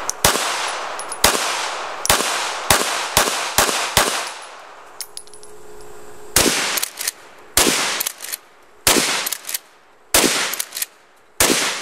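Pistol shots fired repeatedly at a laptop: seven shots over the first four seconds, coming faster as they go, then a pause and a slower string of sharp cracks in close pairs, each ringing out briefly.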